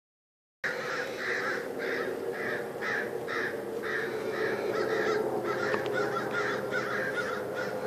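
A flock of crows cawing over and over, many harsh calls overlapping at a few per second: the mobbing calls of crows harassing a raptor. The cawing starts abruptly about half a second in.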